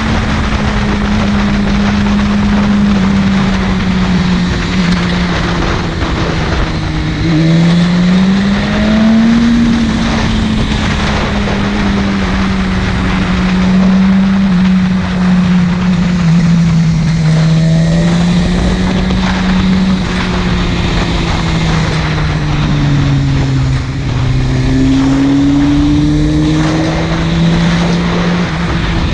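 Buell 1125CR's 1125 cc V-twin engine being ridden hard along a winding road. Its pitch rises and falls slowly with the throttle and gear changes, over steady rushing noise.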